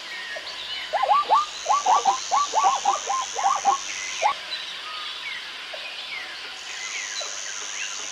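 Zebra barking: a quick run of about a dozen high, yelping calls over some three seconds, starting about a second in. Birds chirp behind it, and a high steady buzz comes and goes.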